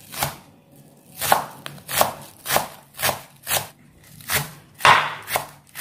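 Kitchen knife slicing through a bunch of green onions onto a wooden cutting board: a steady run of about nine crisp cuts, roughly one every half to two-thirds of a second.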